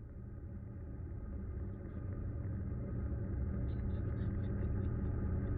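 Car cabin sound while driving: a steady low engine and road rumble, growing gradually louder.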